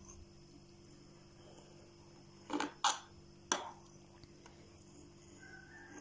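Three sharp clicks about two and a half seconds in, within about a second, over a quiet room hum: a knife blade knocking against a glass baking dish while slicing a soft dessert.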